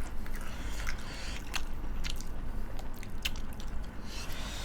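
Close-up eating sounds: chewing and mouth noises with scattered short, sharp clicks and smacks over a low steady hum.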